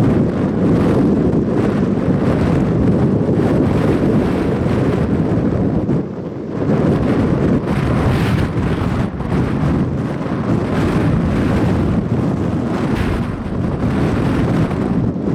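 Strong wind buffeting the microphone, a loud rushing roar that eases briefly about six seconds in and again near twelve seconds, then returns.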